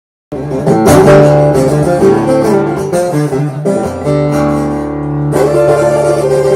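Guitar playing an instrumental blues intro: plucked notes over a held low note, cutting in abruptly at the start.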